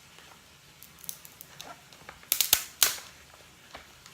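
Seafood shell being cracked open: a few small clicks and snaps, then a quick cluster of loud cracks and crunches about two and a half seconds in.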